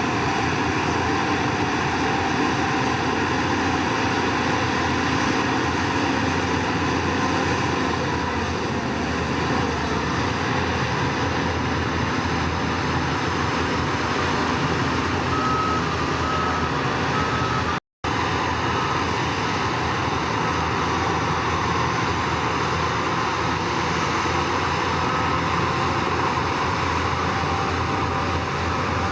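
Diesel engines of heavy earthmoving machinery running steadily under load, with a reversing alarm beeping repeatedly through the second half.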